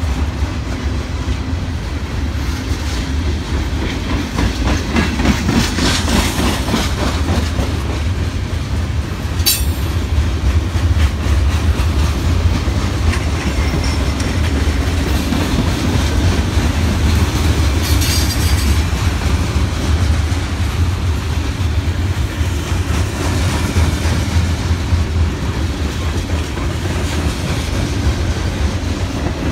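Freight cars of a long freight train rolling past close by, a steady rumble with the wheels clacking over the rails. Brief high-pitched wheel squeals come about ten and eighteen seconds in.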